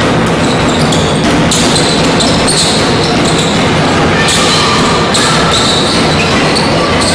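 Basketball game noise on a hardwood court: a ball being dribbled and sneakers squeaking, over a steady loud hall din.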